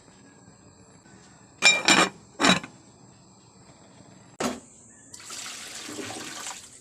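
A few sharp clatters of kitchenware being handled, then tap water runs for about a second and a half near the end, as fish is being cleaned at the sink.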